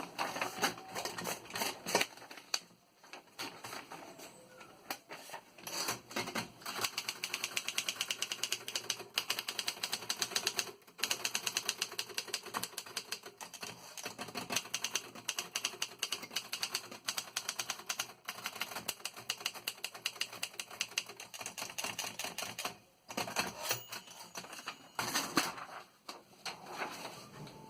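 1955 Optima Elite 3 portable mechanical typewriter being typed on: quick runs of sharp key strikes, with a couple of brief pauses.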